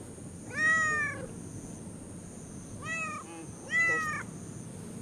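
Stray domestic cat meowing three times, a loud meow about half a second in, a shorter, fainter one around three seconds in and another loud one just after: friendly meows of a cat in a very good mood, rubbing against a person's legs.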